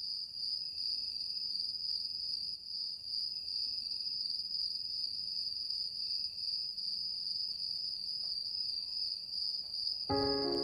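A steady high-pitched whine that holds level throughout; a few notes of music come in near the end.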